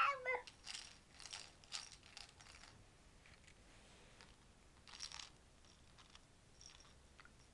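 A baby's plastic teething toy rattling and clicking faintly in several short bursts as it is waved and mouthed, most of them in the first few seconds and one more about five seconds in. A baby's babble trails off at the very start.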